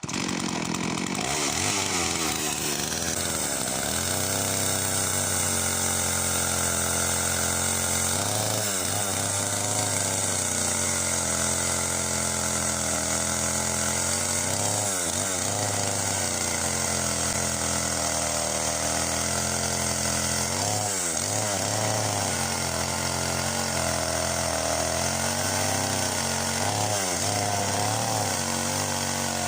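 Husqvarna two-stroke chainsaw running steadily while cutting branches, its engine note dipping and recovering about four times as the chain bites into the wood.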